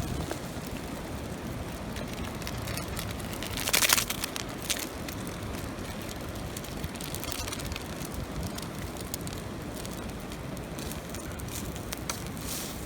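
Wood campfire crackling and popping, with a loud cluster of pops about four seconds in and scattered snaps after, over a steady rushing background.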